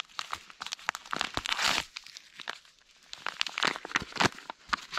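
A foil sachet of sports-drink powder crinkling and being torn open by gloved hands, as a run of short crackles with a louder rip about a second and a half in.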